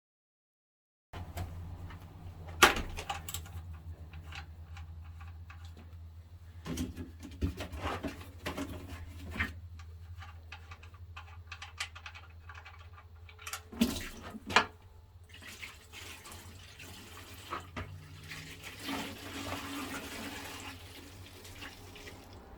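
Engine oil pouring from the oil pan's drain hole into a drain pan, with scattered metal clicks and knocks from the socket and drain bolt, over a steady low hum.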